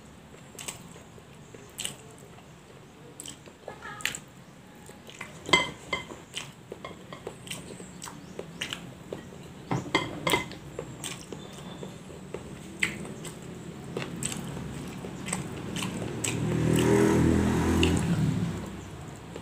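Eating at a table by hand: scattered sharp clicks and taps of food and fingers against ceramic plates, with chewing. About sixteen seconds in, a louder low rumble swells for about two seconds and fades.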